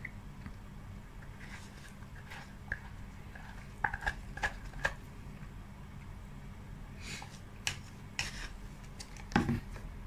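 Metal spoon scraping and clicking against the sides and bottom of a clear plastic cup as the last of the ice cream is scooped out, in two clusters of clicks about four and seven to eight seconds in. A louder knock comes near the end.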